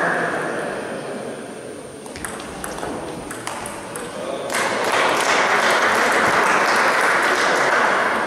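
Table tennis rally: a run of sharp clicks, roughly half a second apart, as the ball strikes bats and table. Applause fades out at the start, and a burst of applause breaks out suddenly when the rally ends.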